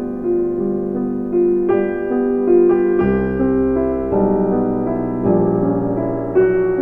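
Background music: a soft piano or electric piano playing a slow melody over sustained chords.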